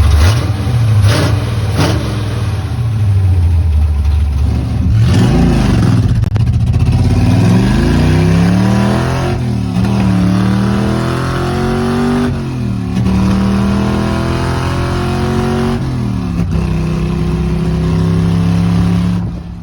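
Carbureted 327 Chevrolet small-block V8 with a dual-quad tunnel ram and headers, running loud and being revved several times, its pitch climbing and dropping with each blip. Three sharp cracks come in the first two seconds, and the sound stops abruptly at the very end.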